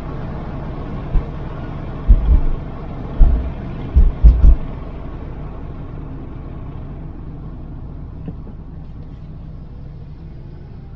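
Car driving, with a steady low rumble of road and engine noise. Several loud low thumps come in the first half, about four or five in all.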